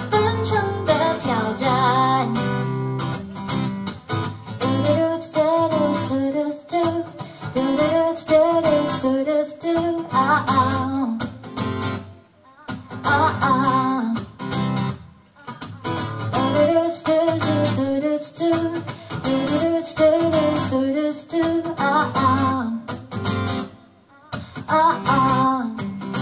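A woman singing a pop melody over a strummed acoustic guitar. The voice drops out briefly about twelve seconds in and again near the end.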